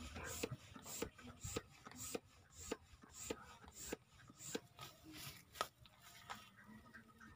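Ball bearings being loaded into a homemade PVC ball bearing toy gun: a steady run of light clicks, a little under two a second, that stops near the end.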